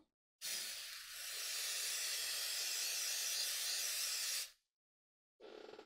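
Aerosol spray can spraying in one continuous hiss of about four seconds, which starts a moment in and cuts off sharply.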